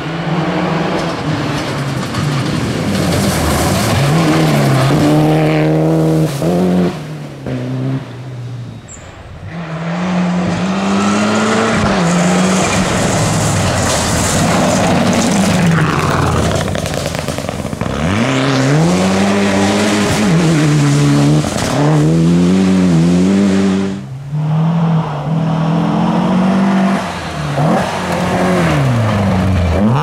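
Rally cars, among them a Mitsubishi Lancer Evolution, driven hard on a gravel stage one after another: engines revving high and dropping repeatedly through gear changes, with short lulls between cars.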